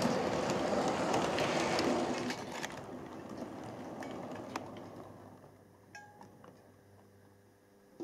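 Model railway train running past on its track: a rumble of wheels with rapid small clicks, fading away over several seconds as the last coach goes by. A few faint clicks remain near the end.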